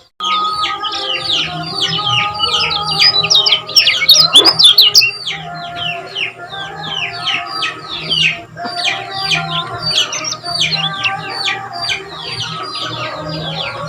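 Kecial kuning white-eye singing a fast run of short, sharp down-slurred chirps, several a second, loudest about four seconds in. Steadier lower warbling tones run beneath.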